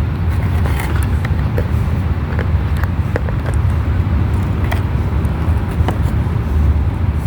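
A steady low rumble with scattered small clicks and rustles as a doll is worked free of its cardboard collector box, where it is sewn in.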